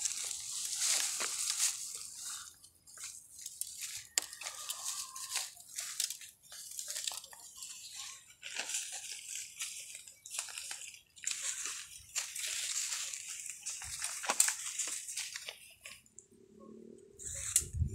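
Footsteps crunching and crackling through dry fallen bamboo leaves, in an uneven run of steps, with leaves brushing against the phone.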